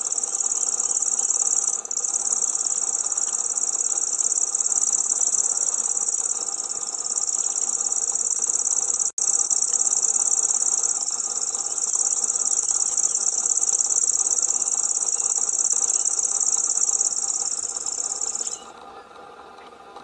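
Common grasshopper warbler reeling: one long, continuous high-pitched reel, broken by two very short gaps near the start and about halfway through, stopping shortly before the end.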